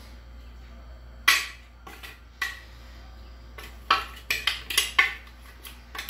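Stainless steel blender jar knocked against a plastic bowl to shake out ground peanut flour: a loud metallic clank, a second one about a second later, then a quick run of about five knocks near the end.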